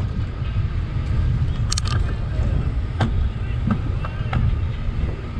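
Wind buffeting the microphone of a camera on a moving bicycle, a steady low rumble, with a few sharp clicks and rattles, the loudest pair about two seconds in.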